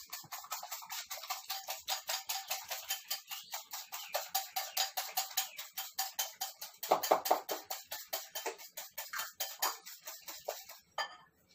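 Eggs being beaten in a bowl with a utensil: a fast, even clicking of strokes against the bowl, about five or six a second, with a louder spell around seven seconds in and a stop near the end.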